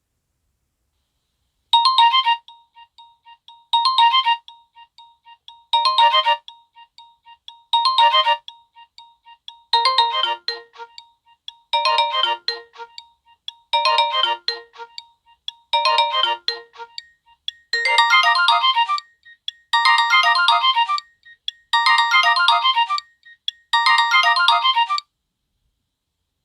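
Built-in ringtone of a Nokia N73 (SoftBank 705NK) playing: a short electronic phrase repeated every two seconds, twelve times in all, the last four longer and fuller, then stopping.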